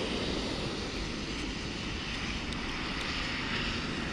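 A steady, even rumbling noise with no distinct pitch, and a few faint ticks near the middle.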